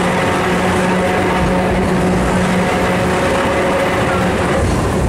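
Historic electric tram running, heard from inside the car: a steady rumble of wheels on the rails with a steady low hum.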